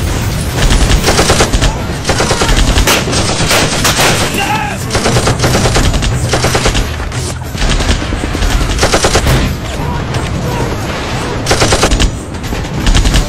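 Repeated bursts of automatic gunfire, volley after volley of rapid shots in an exchange of fire.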